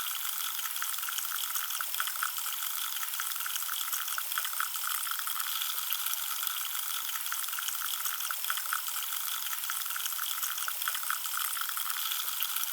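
Carbonated drink fizzing steadily, a dense hiss of countless tiny popping bubbles.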